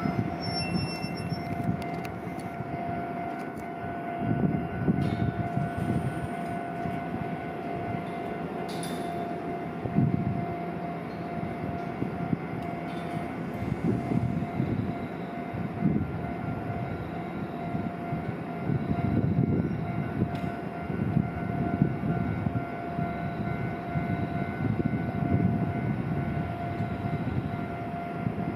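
Shizuoka Railway A3000-series electric train standing at the platform, its onboard electrical equipment giving a steady high whine over a low, uneven rumble.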